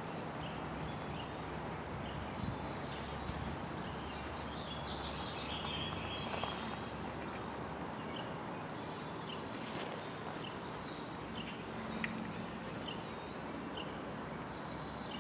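Steady outdoor background noise with scattered short bird chirps.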